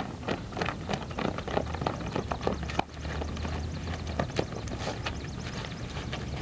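Footsteps of a group of children walking on asphalt: many irregular taps and shoe scuffs, some mingled with the rustle of backpacks being picked up.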